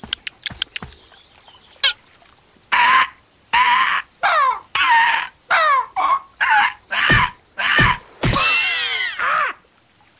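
Cartoon bird clucking and squawking: a run of about eight short chicken-like calls, each dropping in pitch, ending in a longer warbling call. A few light pecking taps come before it, in the first two seconds.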